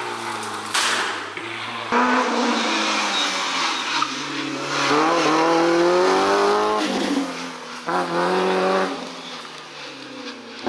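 Rally car engines revving hard through a twisty stage, the note climbing, dropping at a gear change and climbing again; the loudest climb comes about halfway through. The sound jumps abruptly a few times as one car gives way to another.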